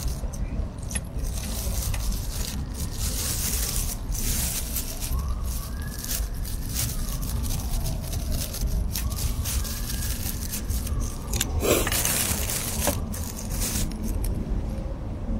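Thin plastic bag crinkling and rustling in short crackles while figs are cut on it with a folding knife, over a steady low rumble.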